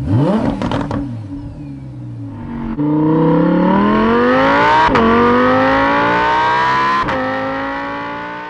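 Performance car engine and exhaust: a quick rev blip with crackles and pops, then a hard pull that starts about a third of the way in, its pitch climbing steadily with two quick upshifts before it fades near the end.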